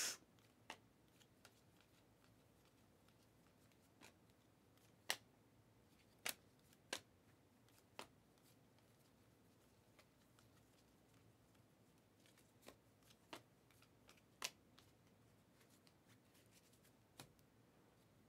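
Panini Mosaic basketball trading cards being flipped through by hand, each card slid off the stack with a faint click or snap. About a dozen faint clicks come at uneven gaps of a second or so, with near silence in between.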